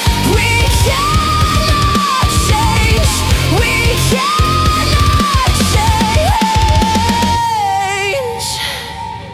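Instrumental electronic rock: a held lead melody line moving between a few long notes over heavy drums and bass. About seven and a half seconds in the drums and bass drop out, and the lead note wavers and falls as the music thins out.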